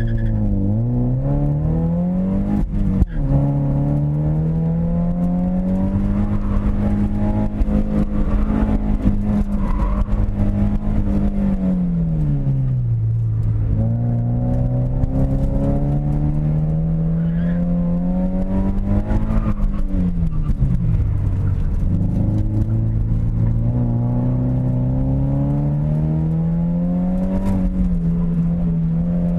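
A car's engine driven hard, its revs climbing and holding high, then dropping away twice, about midway and again about two-thirds of the way through, before climbing again. There is a single sharp knock about three seconds in.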